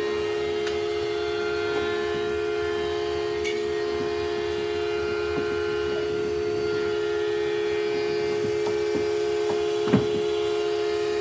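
Electric motor of a woodworking power tool running with a steady hum, with a few faint clicks and one sharp knock near the end.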